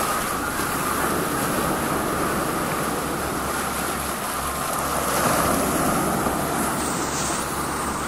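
Small waves washing in over a rocky, pebbly shore, a steady hiss of foaming water that swells a little about five seconds in.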